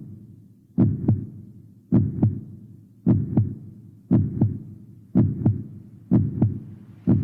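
A slow heartbeat, each beat a paired low 'lub-dub' thump, repeating about once a second.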